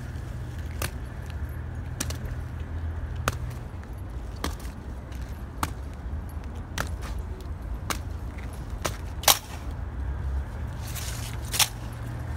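Honour guards' boots striking wet granite paving in a slow ceremonial goose-step march: one sharp clack a little over once a second, the loudest about nine seconds in and near the end. A steady low rumble runs underneath.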